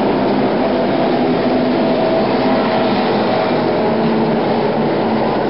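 Stock car V8 engines running together in a steady, loud drone, the pitch of the separate engines drifting slightly.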